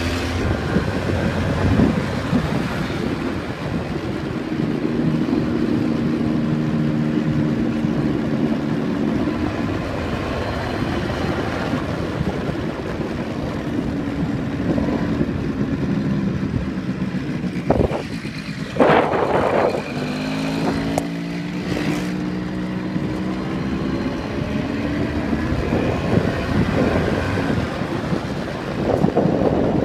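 Small Yamaha scooter engine running while riding along a street, its pitch stepping up and down with the throttle, over a steady rush of wind on the microphone. A brief loud burst of noise comes about two-thirds of the way through.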